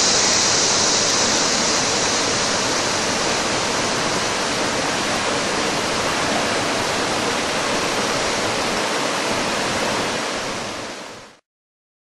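Rushing water of a rocky rainforest creek pouring over stones, a steady rush that fades out near the end.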